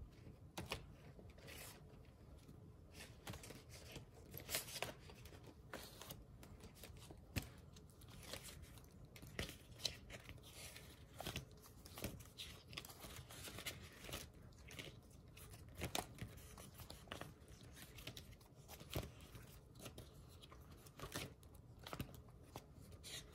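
Faint, scattered rustling and light clicks of paper sticker sheets being leafed through and handled during a search for particular stickers.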